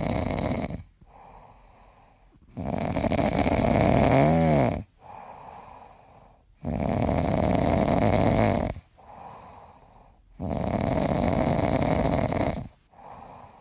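Yellow Labrador snoring in deep sleep: four long snores of about two seconds each, spaced about four seconds apart, with softer breaths between them.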